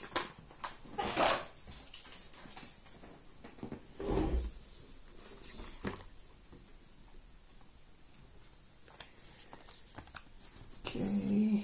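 Handling of small cardboard boxes and paper packaging: scattered rustles and light taps, with a duller thump about four seconds in.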